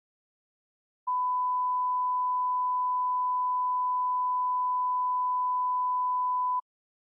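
A 1 kHz line-up reference tone played with colour bars, used to set audio levels: one steady pure tone that starts about a second in and cuts off suddenly after about five and a half seconds.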